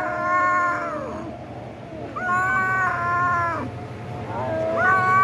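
Domestic cats yowling at each other in a standoff before a fight: long, drawn-out wavering yowls, three of them about two seconds apart.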